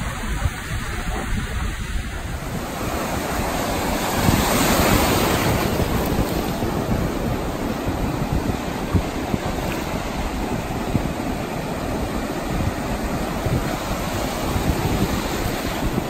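Sea surf breaking and washing in over shallow sand, a continuous wash of waves that swells loudest about four to five seconds in, with wind buffeting the microphone.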